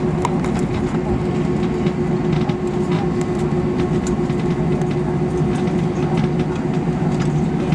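Steady hum of a parked airliner's machinery, holding two constant low tones over a noisy rush, with scattered light clicks and knocks.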